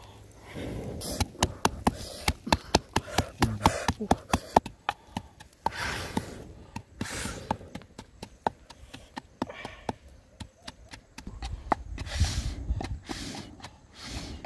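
Wooden pestle pounding in a clay mortar, crushing fresh chili, garlic and salt: a run of sharp knocks, several a second, heaviest in the first few seconds, then lighter and more spaced.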